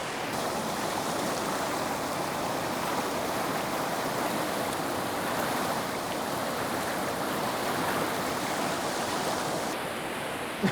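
Waterfall and river water rushing, a steady, unbroken noise.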